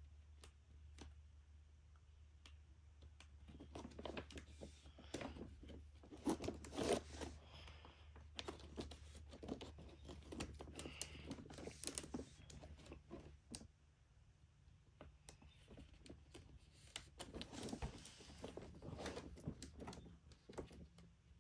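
Sheets of sandpaper scraping and rustling as they slide into the plastic pockets of an accordion file folder, with crinkles and small clicks from the folder's dividers. It comes in three spells of handling with quieter gaps between.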